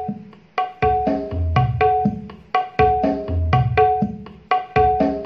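Percussive music with a steady drum pattern and short pitched notes, played through a Kenwood amplifier and small speakers as a sound test; it gets fuller and louder about a second in.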